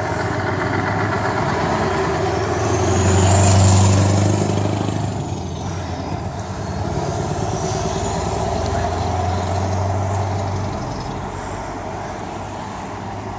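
Scania V8 truck engine running through an open, unsilenced exhaust pipe, a deep steady rumble that swells loudest about four seconds in, swells again, then eases off after about ten seconds.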